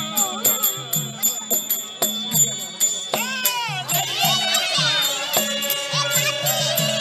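Traditional Kattaikkuttu accompaniment music: a drum keeps a quick rhythm under a steady drone, with jingling bells and small cymbal clicks. In the middle a melody line slides up and down.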